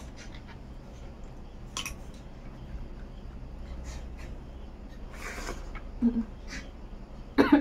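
Eating sounds of a meal of snail curry and rice eaten by hand from a steel plate: scattered soft clicks and rustles of fingers and snail shells. A few short mouth sounds follow, the loudest near the end.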